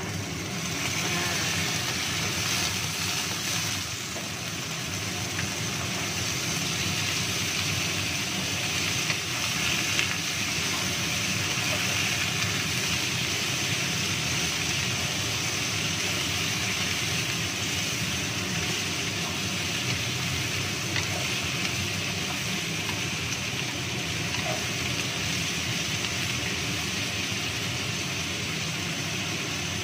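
Boiled banana blossom and long beans sizzling steadily in a hot wok as they are stir-fried, with occasional scrapes and knocks of a wooden spatula against the pan.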